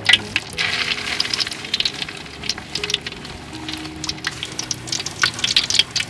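Parrot-fish paste patty deep-frying in hot oil, a dense sizzle full of fast crackles that swells about half a second in as the patty goes into the oil.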